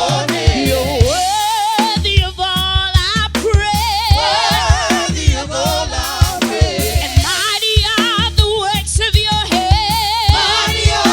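Gospel praise and worship music: singing with vibrato over a steady drum beat and bass.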